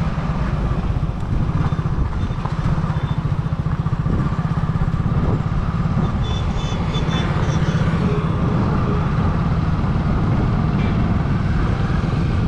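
Running noise of a two-wheeler being ridden along a road: a steady engine note under a heavy, fluttering rumble of wind on the microphone.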